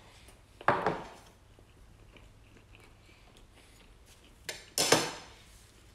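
A man chewing a mouthful of sausage, with two short, louder clatters about a second in and just before the end as a plate and a water glass are handled on a wooden table.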